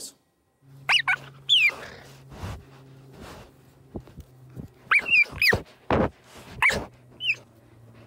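Cheetah chirping: several short, high, bird-like chirps that drop in pitch, some singly and some in quick groups, over a low steady hum.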